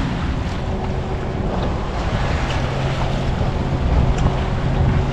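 A boat's 90 HP Johnson outboard motor idling steadily, with wind buffeting the microphone.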